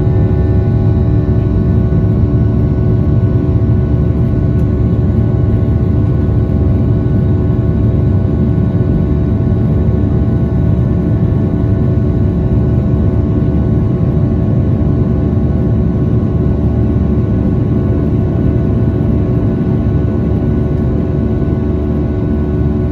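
Boeing 737-800's CFM56-7B turbofan engines heard inside the cabin from a seat over the wing: a steady deep rumble with several constant whining tones on top.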